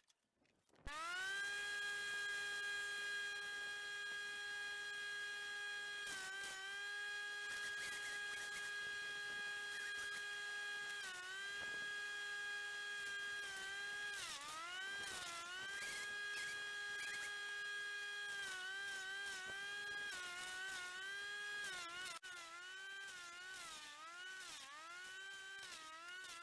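Wood chipper running with a steady whine. Its pitch sags briefly and recovers several times, and more often near the end, as brush is fed in and loads the machine. It starts after a brief silence.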